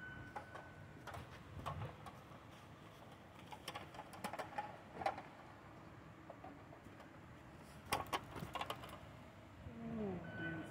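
Quiet, with scattered crunches and snaps of footsteps on dry branches and woody debris, a cluster of them close together near the end. A faint rising hum comes in just before the end.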